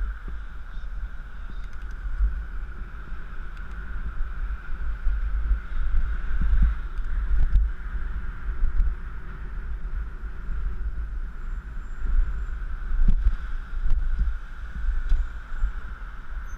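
Wind buffeting a GoPro Hero3's microphone while cycling along a city street: a gusting low rumble over a steady high-pitched hum.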